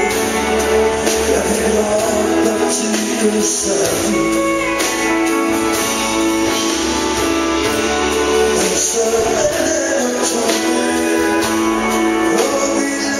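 Live country band playing: strummed acoustic guitars with electric guitar and drums, and a man singing lead.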